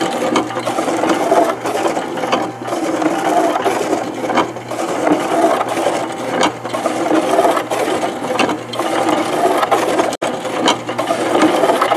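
Kushlan electric cement mixer running with its drum spinning on the gear drive: a steady motor hum with the drive gearing clattering and ticking. It spins freely now that a spacer washer keeps the drive gear off the drum, though the drum is slightly out of round.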